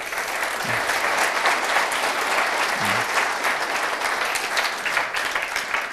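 Audience applauding: many hands clapping at once in a steady patter, which thins out near the end.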